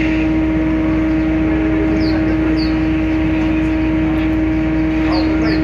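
Roll-on/roll-off ferry's engines running with a steady, loud hum as the ship pulls away from the wharf. A few short, high chirps come twice about two seconds in and twice more near the end.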